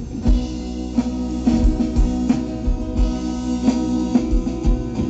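Live band playing an instrumental passage between sung lines: guitars over a steady drum beat.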